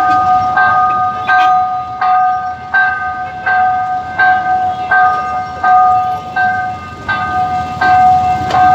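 Railway level-crossing warning bell ringing, a steady repeated chime of about three strokes every two seconds, over the low noise of street traffic.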